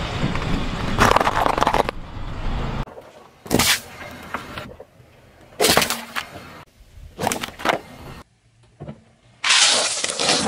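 Car tyre rolling over and crushing objects on asphalt, among them potatoes, a liquid-filled packet that bursts, and a paper plate of candy-coated chocolates: a series of about five cracking, crunching bursts, each cutting off abruptly.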